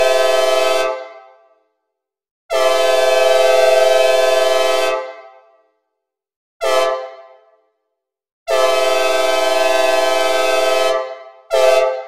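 Synthesized recreation of a Nathan K5LA five-chime train horn with added reverb, sounding a crossing-style sequence. The end of a long blast, then a long blast, a short toot, another long blast and a short tag toot near the end; each one dies away in a reverb tail.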